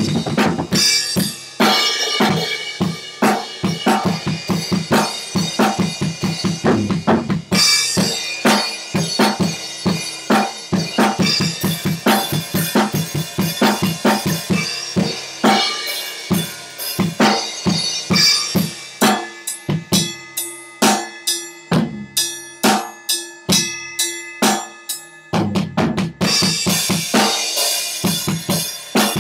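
Sonor acoustic drum kit being played: fast bass drum, snare and tom strikes under a wash of cymbals. About two-thirds of the way through the cymbals drop out for a sparser passage of drum hits, then come back in near the end.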